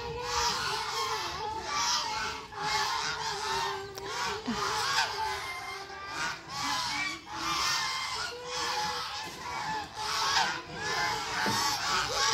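A flock of white domestic geese honking and calling, many short calls overlapping one another without a break.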